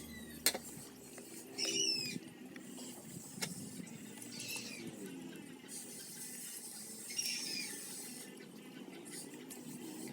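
A bird calling faintly: a short falling call repeated about every three seconds, with a couple of sharp clicks in between.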